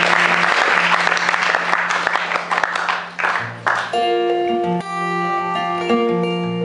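Audience applause dying away over the first three and a half seconds, over a guitar already sounding, then an acoustic guitar playing clear, ringing notes on its own.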